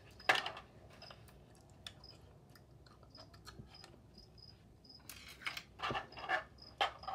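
Insect chirping: short high chirps repeating evenly, two or three a second. Over it come a few louder crackling handling noises, one about a third of a second in and a cluster between five and six and a half seconds.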